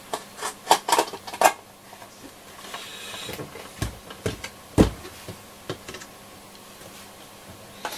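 Handling noise from a Roberts R727 transistor radio's case and chassis being fitted back together: a run of small knocks and clicks, a brief scrape about three seconds in, and a heavier knock just before five seconds.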